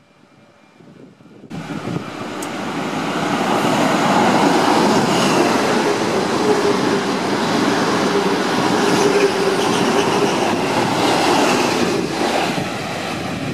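XPT diesel express train passing through a station without stopping, with its wheels running on the rails and its power cars. The noise cuts in suddenly about a second and a half in, builds over the next two seconds and then holds steady and loud, easing a little near the end as the rear power car goes by.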